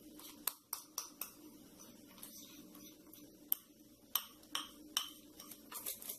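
Scattered light clinks and taps on a small glass jar, about a dozen irregular ones, over a faint steady hum.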